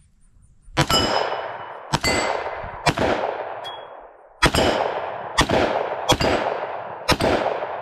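Seven shots from a compensated 10 mm pistol fired at a steady pace, roughly one a second, each trailing off in a long echo. Short metallic ringing follows some shots: steel targets being hit.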